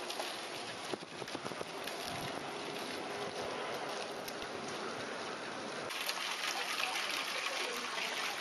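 Small garden fountain splashing into a pond: a steady patter of falling water. The sound changes abruptly about six seconds in, with a brighter hiss.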